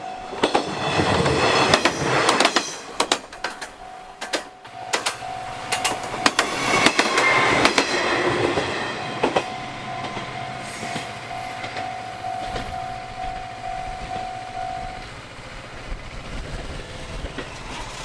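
A Tenryu Hamanako Railway diesel railcar passes over a level crossing, its wheels clacking sharply over the rail joints, while the crossing's warning bell rings. The train noise fades after about 9 seconds, and the bell stops about 15 seconds in.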